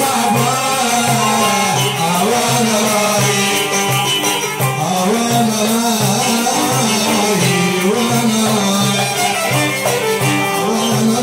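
Iraqi folk song played live by a small ensemble of violin, oud and hand drums, with a steady drum beat and a man singing into a microphone.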